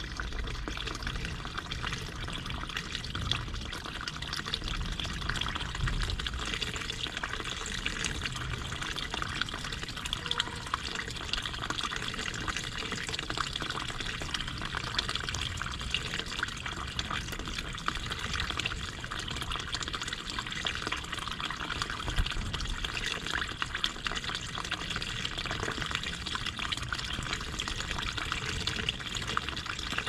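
Water running and trickling steadily in a garden stream.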